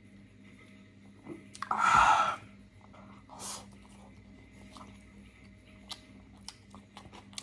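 A man lets out a loud breathy exhale about two seconds in, after a swig of beer, and a shorter breath a second or so later. Then comes open-mouthed chewing with small wet lip smacks.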